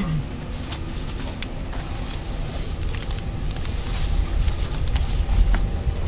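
Passenger-saloon noise of an electric multiple unit: a steady low rumble with scattered clicks and knocks, the rumble growing louder about four to five seconds in.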